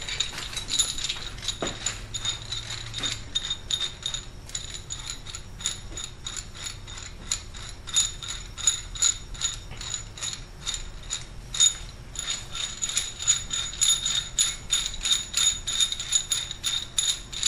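Socket ratchet clicking as it spins the centre forcing screw of a three-jaw puller, several clicks a second in runs, each with a bright metallic ring.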